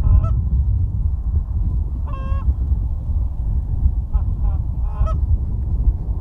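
Canada geese honking: a few short honks, the longest about two seconds in and more around four and five seconds, over a steady low rumble.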